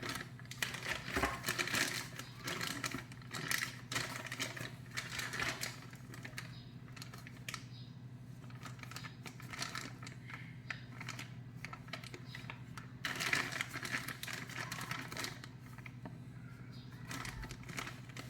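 Plastic packaging bags crinkling and rustling as the bagged sway bar end links are handled, with irregular light clicks and taps. A steady low hum runs underneath.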